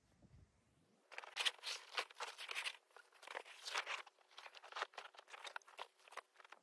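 Nylon bouldering crash pad being handled and shifted against rock, a run of irregular crunching and rustling scrapes, several a second, starting about a second in.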